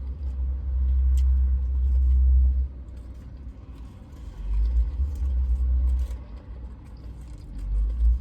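Low rumble that swells and dies away several times, with a few faint clicks, heard inside a parked truck.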